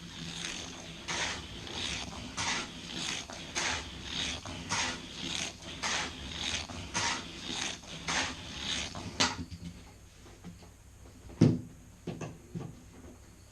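Hot Wheels Sizzlers toy car running laps on plastic track, its small electric motor and wheels making a rhythmic rise and fall about twice a second. The laps stop about nine seconds in, and a sharp knock follows a couple of seconds later, with two softer knocks after it.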